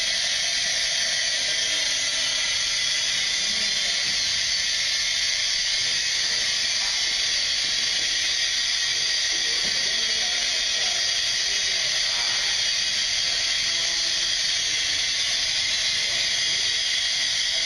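Helium hissing steadily from a compressed-gas cylinder through a brass regulator and hose into a latex high-altitude balloon as it fills. The hiss is high-pitched and unbroken.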